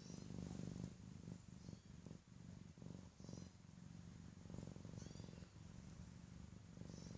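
Domestic cat purring steadily, a low pulsing rumble in phrases with brief pauses between breaths.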